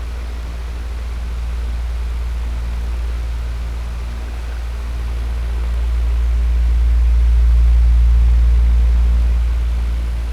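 Electric fan running: a steady airy whoosh over a deep low hum from the motor, slowly swelling louder about eight seconds in and easing again.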